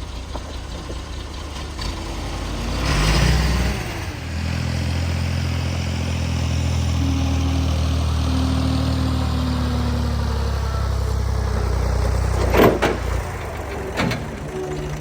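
Tractor engine running; about four seconds in a louder, steady drone sets in and holds until about twelve seconds, followed by a sharp knock and a second, smaller one near the end.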